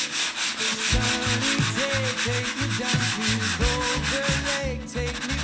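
Hand sanding block rubbed quickly back and forth on the dried varnish of a wooden table-top frame, about six strokes a second, for a final smoothing of the finish. The strokes pause briefly near the end, then resume faster.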